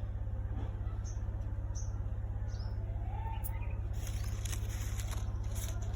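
A small bird chirping four times in short, high, falling notes over a steady low hum, followed by light crackling rustles in the second half.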